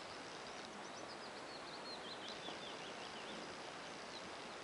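A songbird singing a quick run of high, chattering notes, starting about half a second in and stopping about three seconds in, over a steady outdoor hiss.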